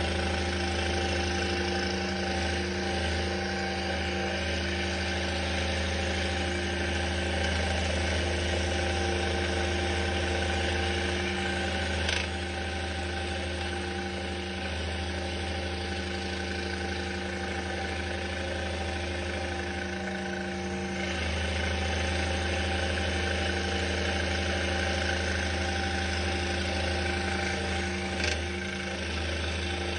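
Scroll saw running steadily, its reciprocating blade cutting through 5/8 inch hard maple over a constant low motor hum. Two brief clicks, one about 12 seconds in and one near the end.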